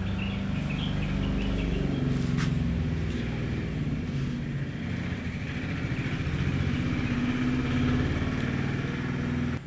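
A motor vehicle engine running steadily, its pitch drifting slightly up and down, with a single sharp click about two and a half seconds in.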